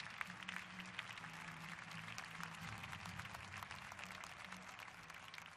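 Arena audience applauding: a dense patter of many hand claps, fairly faint, tapering off slightly toward the end.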